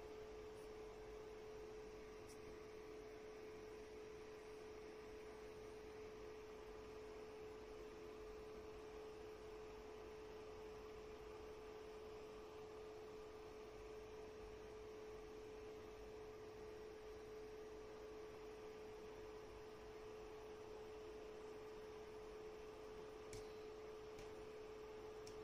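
Near silence: faint room tone with one steady hum held at a single pitch.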